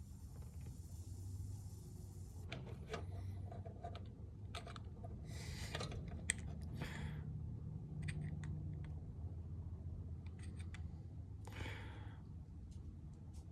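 Faint clicks, taps and short rustles of small tools and parts being handled while soldering, over a steady low hum.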